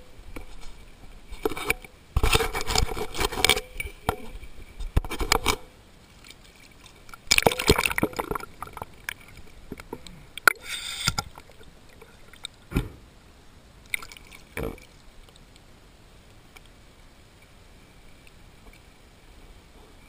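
Water splashing and sloshing right at a mask-mounted camera as a swimmer moves and dives, in several loud bursts over the first half. Two short sharp knocks follow, then only a faint water hiss.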